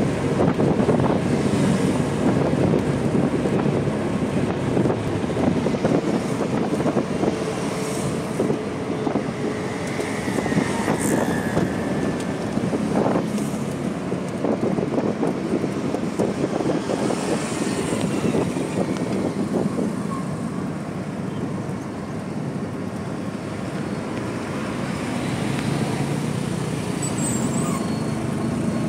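Auto-rickshaw engine running steadily on the move, heard from inside the open cab, with road and passing-traffic noise.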